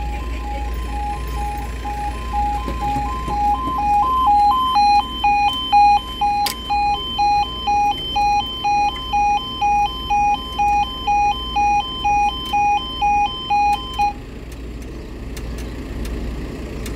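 Level crossing warning alarm sounding, two tones alternating about twice a second, which grows louder about four seconds in and cuts off suddenly about fourteen seconds in. A steady low rumble runs underneath.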